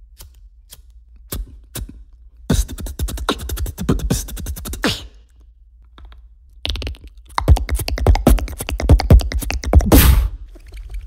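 A handheld lighter flicked a few times, a handful of sparse clicks, then a beatboxer imitating it with a quick run of mouth clicks and hisses. After a short pause, a longer run of rapid mouth clicks and pops imitates bones cracking.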